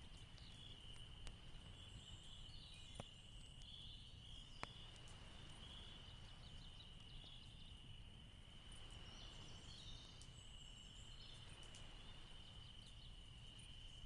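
Near silence: a faint, steady high-pitched tone with scattered faint chirps and a few soft ticks.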